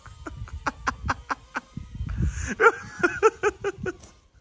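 A person laughing in a long run of short, rhythmic bursts, about four or five a second, louder and more broken in the middle.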